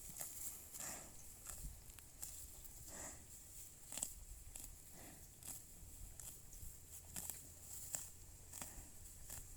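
Buffalo moving or feeding: faint, irregular soft crunches and thuds, about one or two a second.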